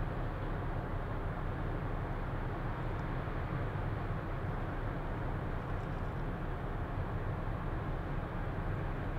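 Steady low engine drone of a passing tanker ship, under a constant rush of wind and water.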